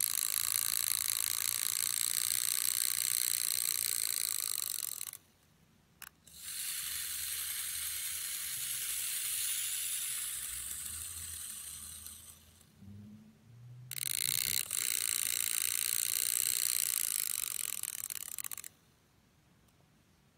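Small brass clockwork mechanism of a hand-held kinetic sculpture running with a high, buzzing whir, in three runs of several seconds each that stop abruptly.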